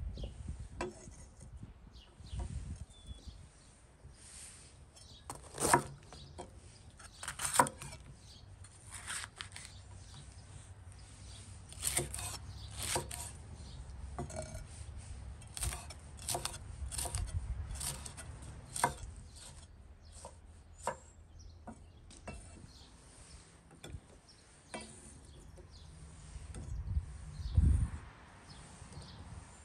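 Chef's knife chopping bell peppers on a thick wooden cutting board: irregular knocks of the blade striking the board, a few of them sharper and louder.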